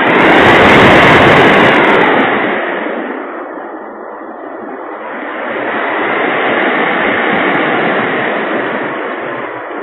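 Wind roaring over the micro camera in the nose of an Easy Glider RC sailplane, kept fast on its landing approach to get through the turbulent air curling over the cliff edge. The roar is loudest about a second in, eases a few seconds later, then swells again.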